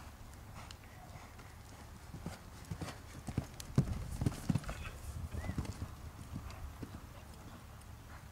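Hoofbeats of a horse cantering on sand arena footing, a run of dull thuds that grows loud as the horse passes close about three and a half to five seconds in, then fades as it moves away.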